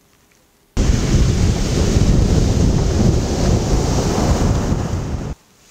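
Sea waves breaking on a shingle beach, with wind buffeting the microphone. The sound starts abruptly just under a second in and cuts off abruptly near the end.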